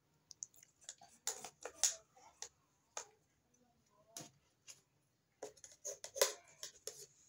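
Light, irregular clicks and taps of small plastic toys being picked up and set down, with a cluster of them about a second in and another near the end.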